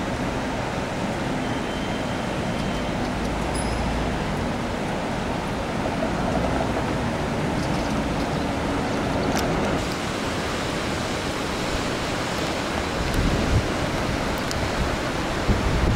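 Steady rushing noise of the Ebro in flood, its muddy water swirling past a stone bridge pier, with low rumbles of wind on the microphone near the end.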